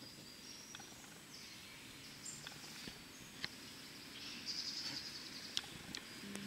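Faint outdoor ambience with birds chirping in the surrounding trees, their calls strongest a little past the middle, and a few scattered faint clicks.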